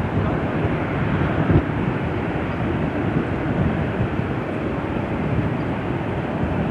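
Airbus A380-800's four Rolls-Royce Trent 900 turbofans at takeoff power during the takeoff roll: a steady, even jet roar.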